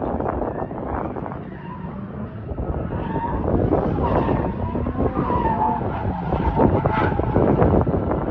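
Nissan 240SX drift car sliding, its engine running hard with tyres squealing from about three seconds in.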